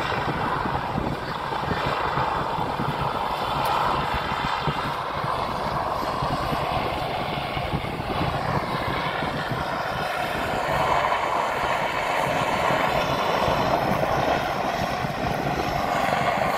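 HM Coastguard AW189 search-and-rescue helicopter hovering and flying low over the sea: a steady, dense drone of rotor blades and turbine engines, growing a little louder in the second half.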